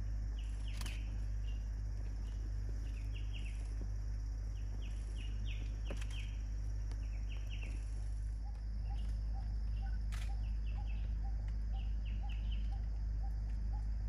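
Forest ambience: small birds chirping in short quick clusters, with a few sharp ticks, over a steady low rumble. In the second half a soft run of evenly spaced lower notes, about two or three a second, joins in.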